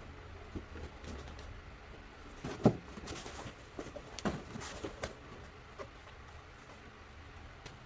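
Handling noises: a sharp knock about two and a half seconds in, then a few lighter knocks and clicks over a faint low hum.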